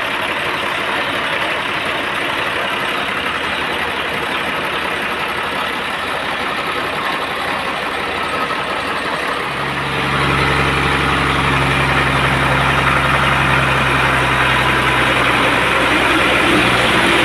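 Band sawmill machinery running steadily with a dense mechanical noise. About ten seconds in, a deep engine hum joins and the whole sound gets louder.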